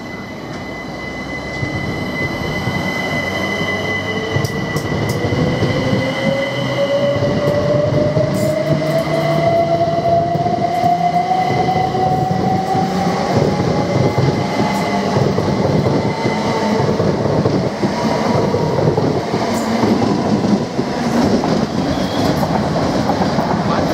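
Southern Class 377 Electrostar electric multiple unit pulling away and accelerating. Its traction motors whine, rising steadily in pitch as it gathers speed, over the rumble of wheels on the rails with scattered clicks. The sound grows louder over the first several seconds.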